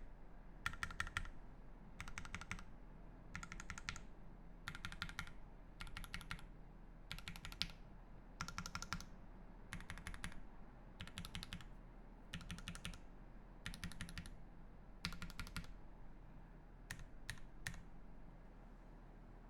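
Voice65 mechanical keyboard with lubed Gateron Ink Black linear switches on an aluminium plate, under GMK keycaps, being typed on in quick bursts of keystrokes about every second and a half. The typing thins to a few single keystrokes and stops shortly before the end.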